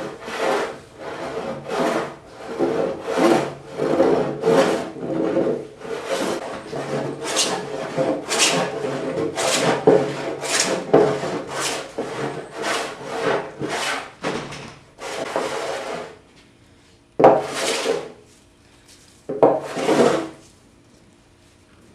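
Stanley hand plane shaving a cypress slab in quick short strokes, about one and a half a second, then after a pause two longer separate passes near the end.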